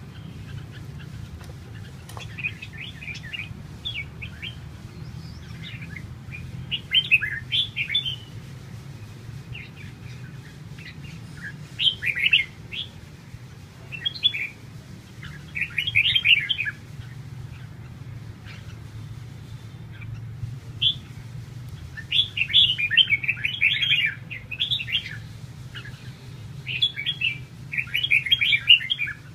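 Caged red-whiskered bulbuls singing in short bursts of quick chirpy phrases every few seconds, over a steady low hum.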